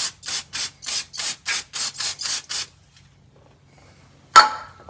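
Aerosol spray can being shaken, its mixing ball rattling in even strokes about three to four times a second, stopping near the middle. About four seconds in comes a single sharp clank with a short ring, the can being set down on the concrete floor.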